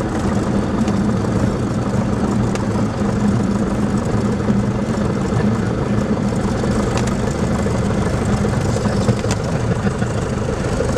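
Cockpit sound of a 1977 Grumman Cheetah's four-cylinder Lycoming O-320 engine and propeller running steadily at low power, throttled back for the landing, with a few faint clicks.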